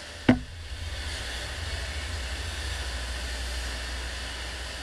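Steady low rumble and rush of water from a flowboarding standing-wave machine. A single sharp knock comes just after the start.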